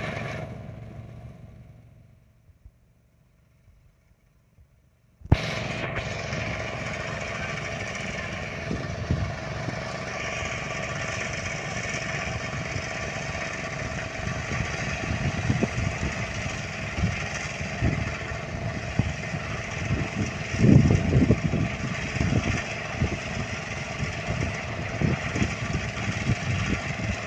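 A portable engine-driven rice thresher starts up suddenly about five seconds in, after a few seconds of near silence. It runs steadily, with irregular louder low thumps in the second half.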